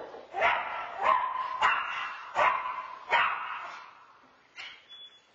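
A dog barking: five sharp barks over about three seconds, then two fainter ones near the end.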